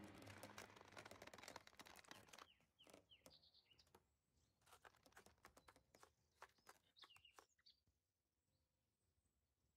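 Near silence: the soundtrack music dies away at the start, leaving a few faint high chirps and light clicks, then nothing from about eight seconds in.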